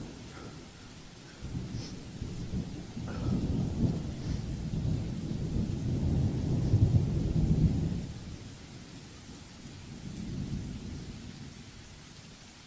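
Low rolling thunder, a rumble that builds over several seconds and fades, then a weaker second roll near the end.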